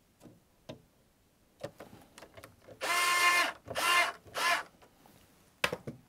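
Cordless electric screwdriver driving a screw into a panel, its motor whirring in three short bursts, the first the longest. A few light clicks of handling come before it and a sharp clack after.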